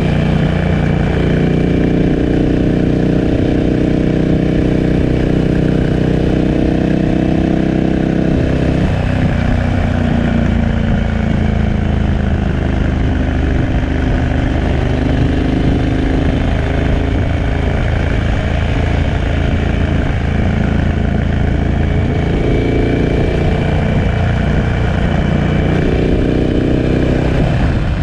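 KTM 1290 Super Adventure S's V-twin engine through a Remus 8 exhaust while riding on the road. The engine note holds steady, drops about nine seconds in as the throttle comes off, then rises and falls with the throttle.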